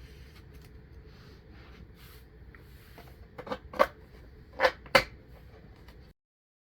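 Skateboard parts and hardware being handled during assembly: a few sharp clicks and knocks in quick succession a little past the middle, then the sound cuts out completely.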